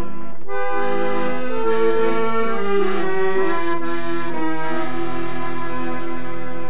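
Two accordions playing a tune together in sustained, reedy notes.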